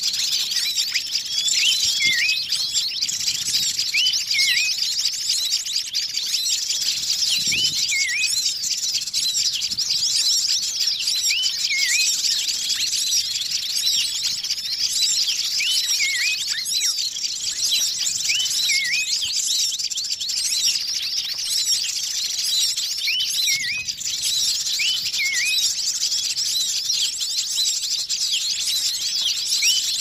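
Bird-lure recording of agitated wild birds: a dense, continuous chorus of many small birds twittering and chirping at high pitch. A distinct hooked call repeats every couple of seconds over it. It is a 'burung ribut' lure, a mix of the excited calls of many small bird species, meant to draw wild birds in.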